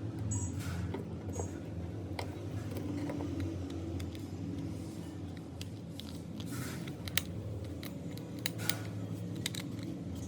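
Scattered small clicks, taps and a brief scrape of tools and parts being handled while a phone is repaired, with a few sharper clicks near the middle, over a steady low hum.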